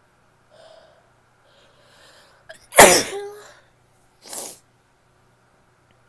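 A woman sneezing once, loud and sudden, about three seconds in, after a few short breaths in. A shorter, quieter breathy burst follows about a second and a half later.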